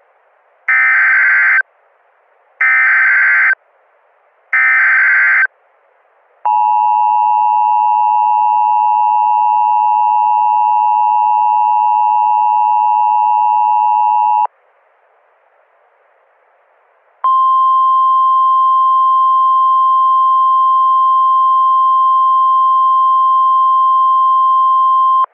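Emergency Alert System alert: three shrill, warbling bursts of SAME header data about a second each, then the two-tone EAS attention signal held for about eight seconds. After a short pause of faint hiss comes a single steady weather-radio warning tone for about eight more seconds.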